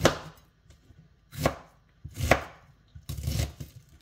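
Kitchen knife chopping an onion on a cutting board: a few separate strokes, each a sharp knock of the blade on the board, the last a short quick run of cuts just after three seconds in.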